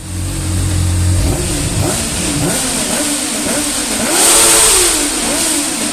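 Motorcycle engine revving, its pitch rising and falling, under a steady rush of wind noise that swells louder about four seconds in.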